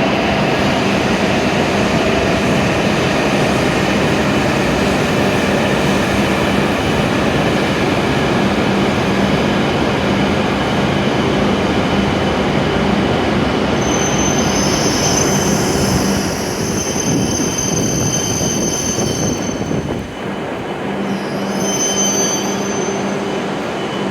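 E7-series Shinkansen train pulling into the platform, its running noise rumbling steadily. Over the last ten seconds, as it brakes toward a stop, there are high-pitched squeals from the brakes and wheels.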